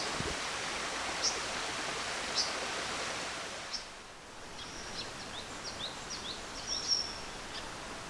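Forest ambience: a steady rushing hiss with short, high bird chirps about once a second. A little past halfway the hiss drops and a quicker run of short chirps follows.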